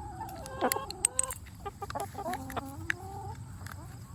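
Chickens clucking in a series of short, low calls, mixed with a few light clicks as the aluminium can is handled.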